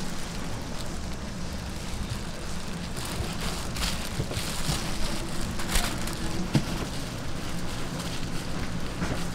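Gimbap being rolled by hand on a bamboo mat: soft rustles and light taps of gloved hands, mat and seaweed, over a steady crackling hiss in the background.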